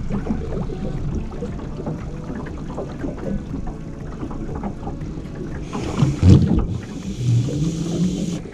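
Rumble and small knocks of a small fishing boat on the water, just after the outboard is told to be cut. A louder thump comes about six seconds in, followed by a hiss that lasts to near the end.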